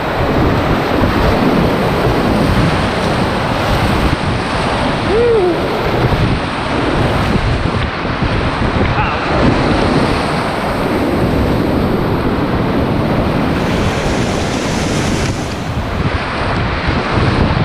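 Loud, steady rush of whitewater rapids, heard from a kayak running them, with water and spray buffeting the microphone.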